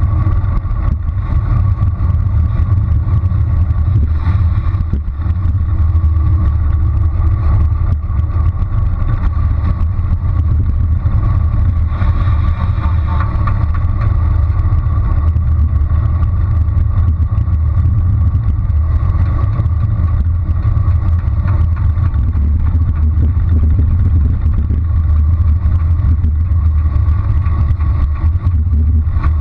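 Wind buffeting a bike-mounted GoPro's microphone during a fast bicycle descent: a loud, steady low rumble.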